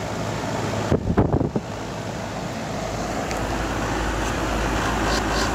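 Goodman air-conditioner condensing unit running: the compressor, just brought up by a newly added hard-start kit, hums low under the steady rush of the condenser fan, getting slightly louder. A short clatter about a second in.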